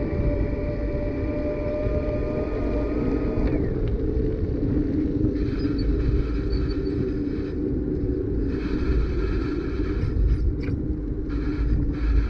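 Wind buffeting the microphone and tyre rumble of a bicycle riding on an asphalt path. A steady pitched hum is present for about the first three and a half seconds, then stops.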